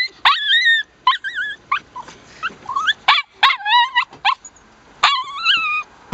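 Chihuahua howling and yipping in a high, wavering voice, a string of short cries and a few longer wails, upset at being left alone in the car.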